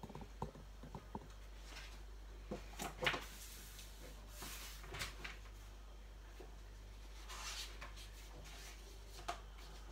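Paper pages of a colouring magazine being handled and turned: a scattering of short paper rustles and soft taps, the loudest about three seconds in, with another page-turn rustle a little past halfway.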